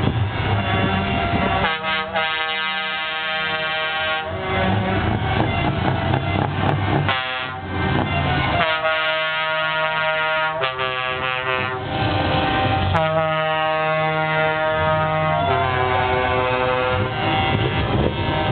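Truck air horns sounding in a series of long blasts, several tones held together like chords, with short breaks between, over the low rumble of the trucks' engines.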